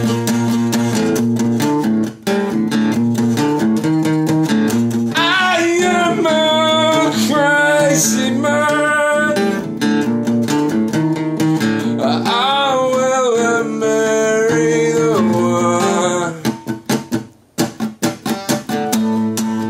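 A song with strummed acoustic guitar and a singing voice. The voice comes in twice, about five and twelve seconds in. Near the end the guitar breaks into a few short, choppy stops before the strumming resumes.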